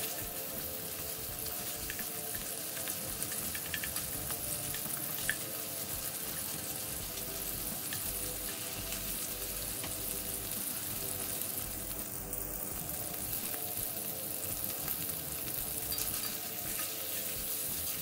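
Chopped fatty bacon sizzling steadily as it fries and renders its fat in an enameled cast-iron pan, with a few scattered pops.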